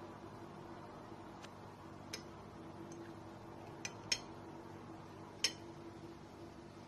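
A metal fork clinking lightly against a ceramic plate, five short clicks with the loudest two near the middle and one more about a second and a half later, over a faint steady hum.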